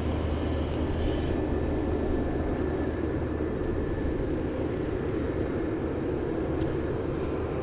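Boeing 767-300F freighter's twin turbofan engines at taxi power: a steady jet rumble with a faint high whine above it.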